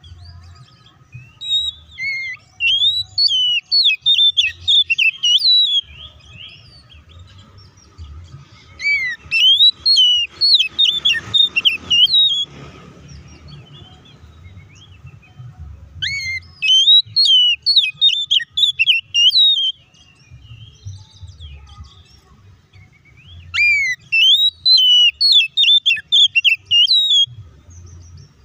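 Oriental magpie-robin singing in four bursts of about four seconds each: rapid runs of high chirps and whistled, gliding notes, with short pauses between bursts.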